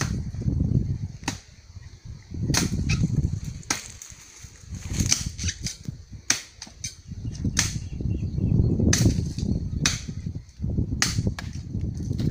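A blade chopping into saplings and undergrowth: sharp, irregular strokes about once a second, sometimes two or three in quick succession, over a low rumble that swells and fades between them.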